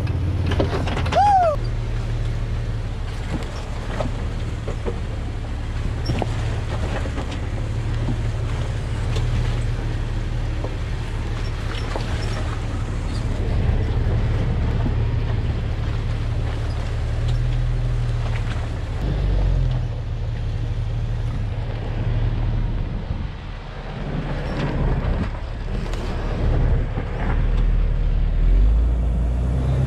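Jeep engine running at low speed with the rumble and crunch of tyres crawling over a rocky dirt trail, heard from a camera mounted low on the body. The engine rumble rises and falls in steps as the throttle changes, with occasional knocks from the rough ground.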